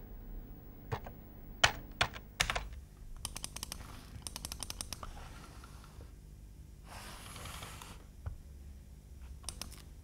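Keys clicking on a computer keyboard: a few single key presses, then quick runs of typing, with a couple more clicks near the end.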